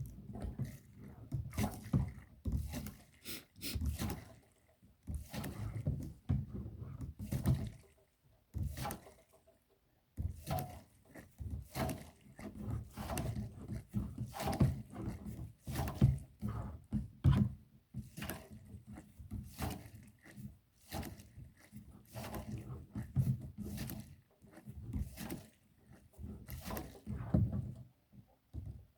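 Hand siphon pump worked in repeated short strokes, moving kerosene from a container into a heater's tank, with the odd knock from handling; the pulses come about once a second and stop briefly about ten seconds in.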